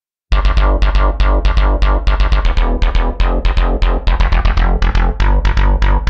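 Software synthesizer arpeggio from UVI Falcon's Spectre 'ARP Boson' preset: fast pulsing repeated notes, about six or seven a second, over a deep held bass, starting a moment in. Its tone changes in the second half as the preset's Morph and Thorus controls are turned up.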